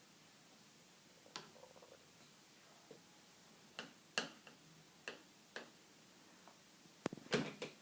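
Faint, scattered clicks and taps of a toddler's spoon on his dish as he eats, a second or so apart, then a quick cluster of taps near the end.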